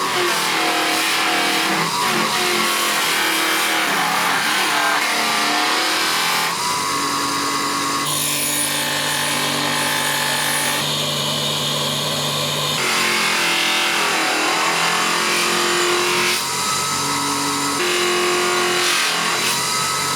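A salvaged washing machine motor running as a power tool and abrading wood. Its steady hum shifts in pitch every second or two as the load on it changes.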